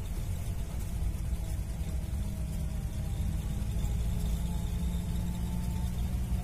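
Four-wheel-drive jeep driving on a dirt track, heard from inside the cabin: a steady low engine and road rumble.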